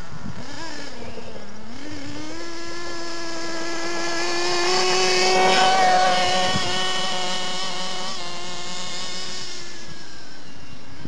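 The .32 two-stroke nitro glow engine of an OFNA Mutilator RC truggy runs at high revs while the engine is being broken in. Its high whine dips about a second and a half in, then climbs back and holds steady. It is loudest around the middle, as the truggy passes close.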